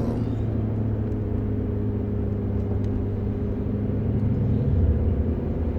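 Steady low rumble with a constant low hum, unchanged throughout.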